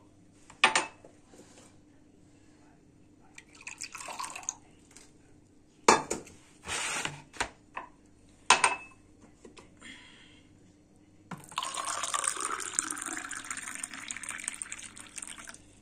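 Warm water poured from a kettle into a drinking glass: a steady pour for about four seconds, starting about eleven seconds in. Before it, a few short clinks and knocks of glass and containers being handled.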